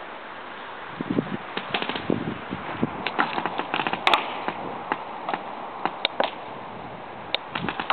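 Paintball markers firing: scattered sharp pops at irregular intervals, with a quicker string of shots about three to four seconds in, over steady outdoor background noise. A few dull thuds come about a second in.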